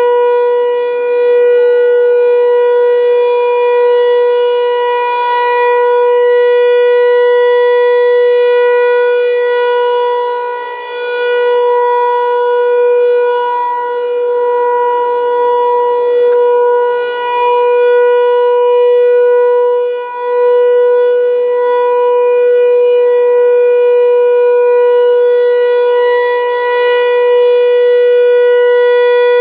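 American Signal Corporation Tempest T-128 outdoor warning siren sounding a steady alert tone: one unwavering pitch, swelling and fading in loudness as its horn rotates.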